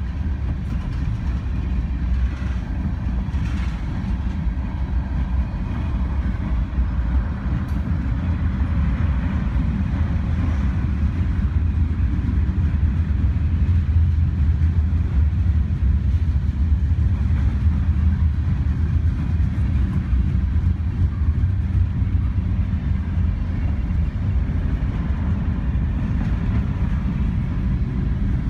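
Freight train of tank cars and covered hopper cars rolling steadily past: a continuous low rumble of wheels on rail.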